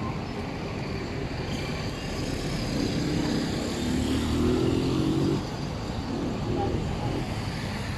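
A motor vehicle's engine passing on the road beside the promenade. Its hum swells from about three seconds in and drops away suddenly about five and a half seconds in, over a steady background rumble of traffic and wind.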